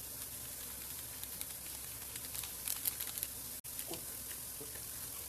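Spice paste frying in oil in a pan: a steady sizzle with scattered small crackles. The sound cuts out for an instant a little past halfway.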